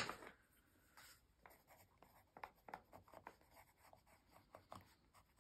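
Pencil writing on sketchbook paper, a faint string of short scratching strokes.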